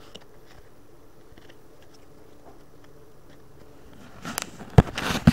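Low room noise with a few faint ticks, then about four seconds in a run of loud rustles and knocks close to the microphone as the trading cards and the recording device are handled.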